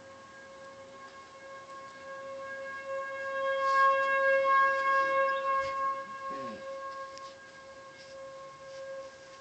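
Outdoor tornado warning siren sounding one steady, unchanging pitch. It grows louder around the middle and then eases off again. This is the routine weekly Saturday-noon siren test.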